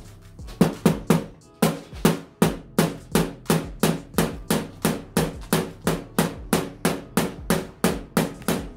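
Small hammer striking nails in a wooden kit piece, a rapid even series of about three blows a second that starts under a second in: the nail ends are being flattened into the wood.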